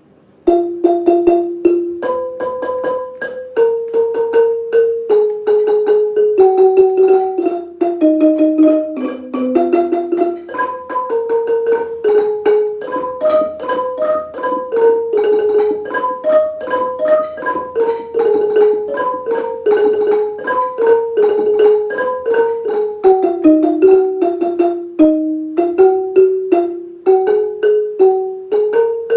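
Ranat ek, the Thai treble xylophone with its hardwood bars, playing a Thai classical melody as a fast, continuous stream of mallet strikes. The playing starts about half a second in.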